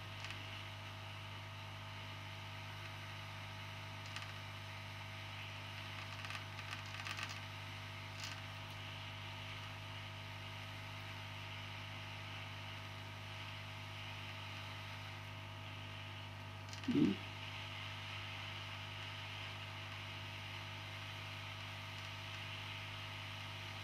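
Aoyue INT852A+ hot air rework station running, a steady hum with a faint hiss of air from its handpiece, while small transistors are heated off a circuit board. A few faint ticks come around six to eight seconds in, and a brief low thump about seventeen seconds in.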